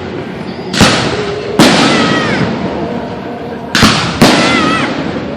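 Aerial fireworks shells bursting: four sharp booms in two close pairs, each trailing off in a long rolling echo.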